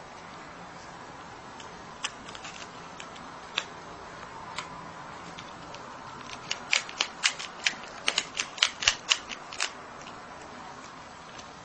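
Marmot crunching and gnawing food held in its front paws: a few scattered crunches, then a quick run of loud crunches about halfway through, roughly four a second for about three seconds.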